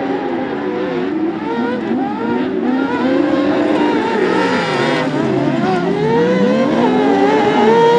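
Several kart cross buggies racing together on dirt, their high-revving engines overlapping, each rising and falling in pitch as it accelerates and changes gear. The engines get a little louder near the end.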